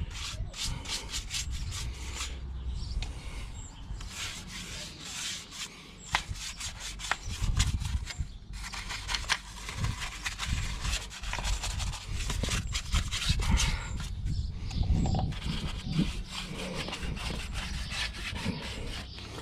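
Paintbrush scrubbing thin liquid rust treatment onto a rusty steel van wheel: quick, irregular brush strokes rubbing on the metal.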